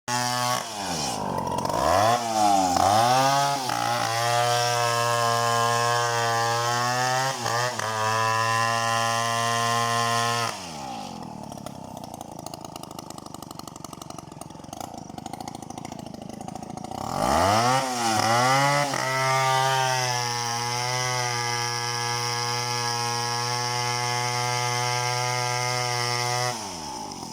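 Chainsaw engine revving up in a few quick bursts, then held steady at full throttle. It drops back to idle for several seconds, then revs up and runs at full speed again before falling back to idle near the end.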